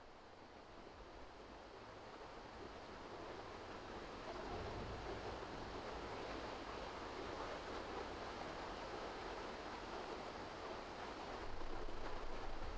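A steady rushing noise, like wind or moving water, that grows louder over the first few seconds and then holds.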